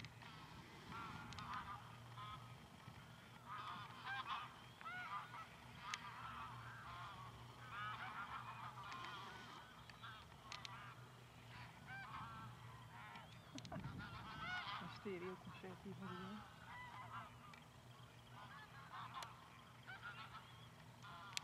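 A flock of geese calling, many short honks overlapping one another throughout, over a steady low hum.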